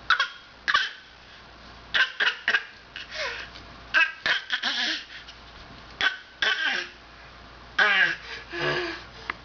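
A young child fake coughing in short bursts, usually two or three close together, with laughing in between.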